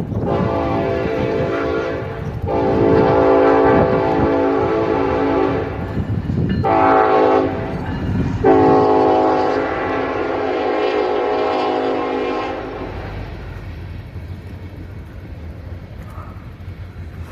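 Train horn sounding a series of blasts: several long ones and one shorter one, over the low rumble of the passing train. The horn stops about 13 s in, leaving the rumble.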